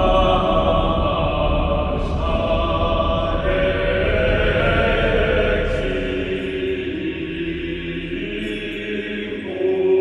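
Dark background music with sustained, chant-like choir voices over a low drone. The low drone fades away in the second half, and a new held chord comes in near the end.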